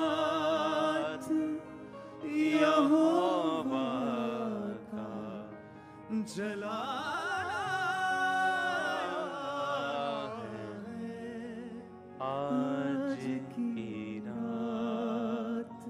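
A slow worship song: a single voice singing long, wavering held notes over a steady instrumental accompaniment, in phrases separated by short pauses.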